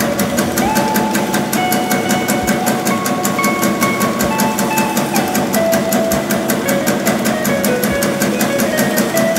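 Meatball-forming machine running, with a rapid, even clicking of about six strokes a second over a steady hum.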